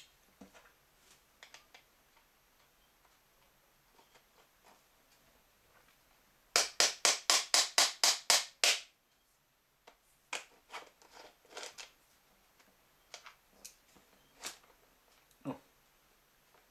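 Hands and a metal tool working on a pram wheel with a plastic hub and rubber tyre. There is a quick, even run of about ten sharp clicks over two seconds, then scattered clicks, scrapes and knocks, with a dull thump near the end.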